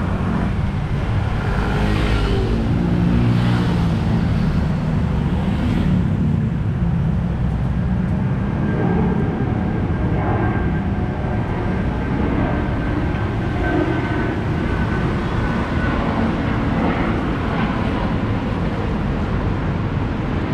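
Road traffic: cars passing on a multi-lane city street, with engine hum and tyre rumble. One vehicle's engine passes close in the first few seconds, and a thin steady whine sounds for several seconds in the middle.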